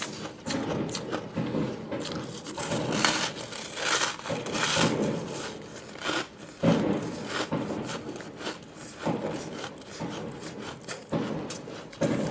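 Packed shaved-ice balls being bitten and chewed close to the microphone: a quick, irregular run of crisp crunches, with a few louder bursts along the way.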